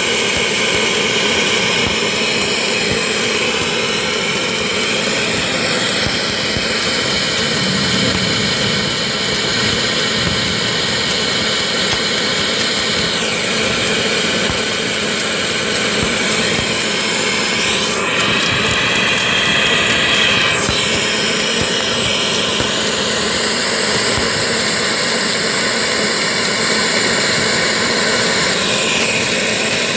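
Submerged arc welding equipment running during a stainless steel weld pass: a loud, steady machine drone with a steady hum. Brief sweeping tones glide through it a few times, around halfway and again near the end.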